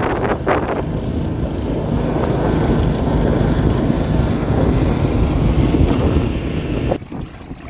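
Small boat engine running steadily under way, then dropping away sharply about seven seconds in.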